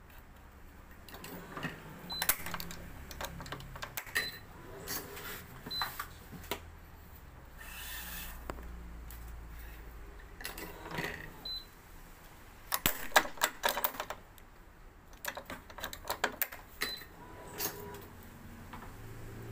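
Scattered sharp clicks and ticks of a badminton racket being strung on a stringing machine: string pulled and woven through the frame and metal clamps handled. There is a brief swish of string being drawn through about eight seconds in, and a quick run of clicks about two-thirds of the way through.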